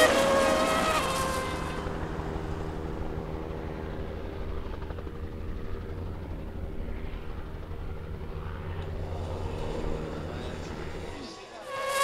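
A Formula One car's engine note falls in pitch and fades as it passes, over the first second or so. Then a helicopter runs with a steady low rumble, which cuts off a little before the end.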